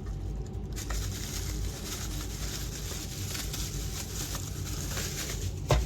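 Rustling with scattered light clicks as the toy's packaging is handled, and one sharp knock just before the end.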